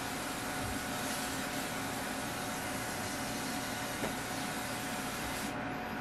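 Electric fan running with a steady whirring hiss and hum. A faint tap comes about four seconds in, and the hiss thins near the end.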